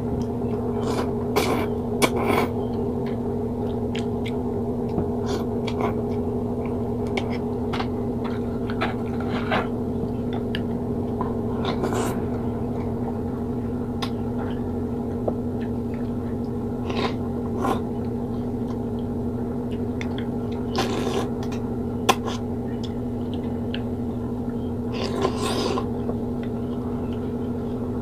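Close-up eating sounds: a few slurps of odong noodles and sardine broth and chewing, with scattered small clicks of chopsticks and a wooden spoon against a glass bowl, over a steady low hum.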